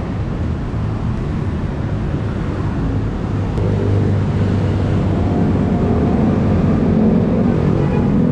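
Street traffic: motorbike and car engines running and passing by on the road, a steady din. An engine hum grows louder in the second half.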